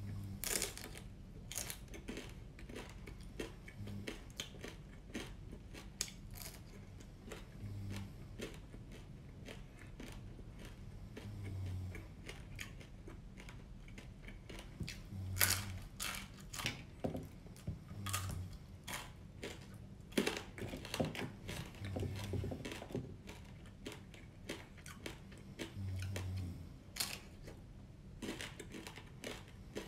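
Chewing and crunching of small deep-fried, flour-coated blue swimmer crabs eaten shell and all, the hard shells cracking between the teeth in short, irregular crunches.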